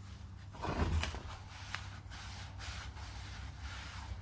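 Cloth rag wiping out the inside of a Land Rover Defender wheel hub in repeated rubbing strokes, cleaning the seat where the bearing races sat. A single thump about a second in.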